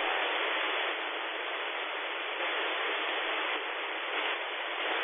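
Steady static hiss from an SDR receiver scanning the AM aircraft band between transmissions. The hiss shifts slightly in level every second or so as the scanner steps between frequencies.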